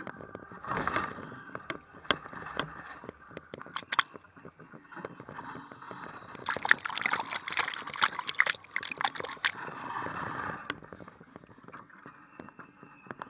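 Choppy water splashing against the hull of an IOM radio-controlled model yacht, heard from a camera on board, with many sharp clicks throughout. The splashing is heaviest from about six and a half to nine and a half seconds in.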